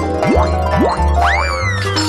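Playful, cartoon-style jingle music over steady bass notes, with sound effects: two quick upward boing slides, then a whistle-like tone that swoops up and slowly slides back down.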